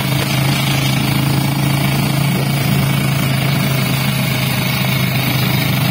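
A small motorcycle engine on a tricycle, running steadily while under way, heard from inside the sidecar with road and wind noise.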